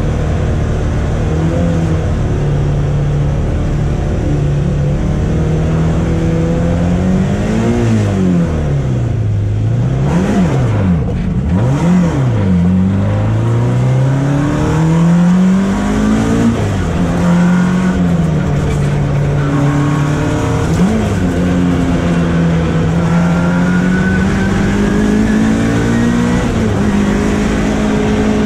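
Mk1 Volkswagen Golf race car's four-cylinder engine heard from on board, its revs rising and falling again and again. Quick up-and-down blips come about ten seconds in, and the pitch is held steady and higher near the end.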